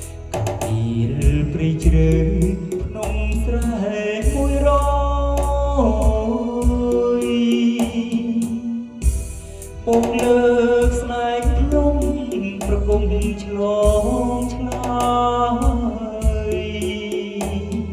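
A man singing karaoke into a handheld microphone over a backing track, amplified through a JBL EON208P portable PA with a JBL PRX815XLFW subwoofer. Heavy deep bass comes in long stretches under the voice.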